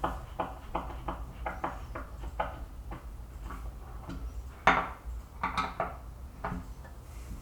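Irregular light knocks and clacks of wood and small hardware being handled, about two or three a second, with a sharper knock just before five seconds in.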